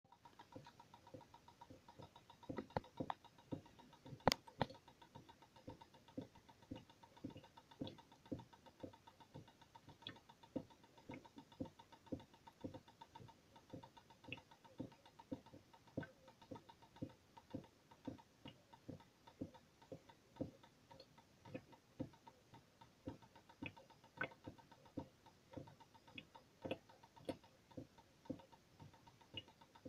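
Water drops falling steadily onto a metal sink strainer, each drop a sharp tick, about two a second, with one louder drop a little over four seconds in.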